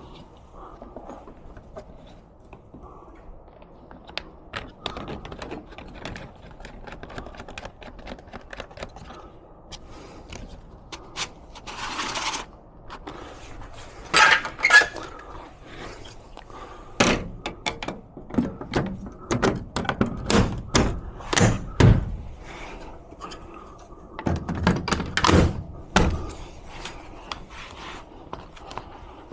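Irregular knocks, clicks and thuds of hard objects being handled, with a short rasp about twelve seconds in and the heaviest clatter in the second half.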